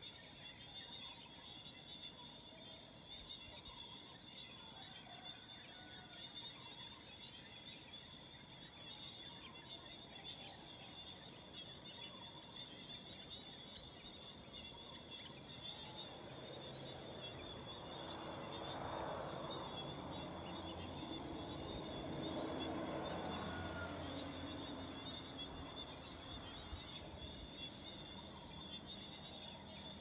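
Rural dawn ambience: a steady high insect trill under scattered bird chirps. In the second half a louder sound with a low hum swells up and fades again over several seconds.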